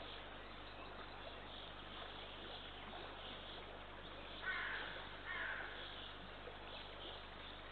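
Two short, harsh bird calls about a second apart, over faint distant birdsong.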